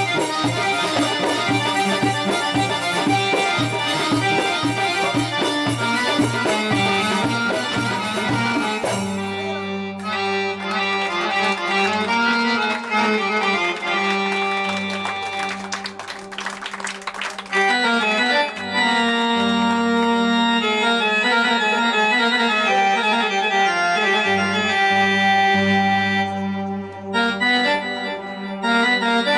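Middle Eastern traditional music accompanying a tanoura whirling dance. A fast drum beat drives the first nine seconds or so, then held keyboard-like melody notes run over a steady low bass.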